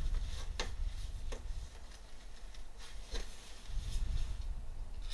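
Paper towel rubbing and wiping over an engine's cylinder-head intake mating surface, with a few faint clicks over a low rumble.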